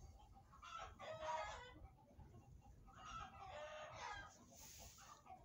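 Roosters crowing faintly: two crows about two seconds apart, with a short hiss near the end.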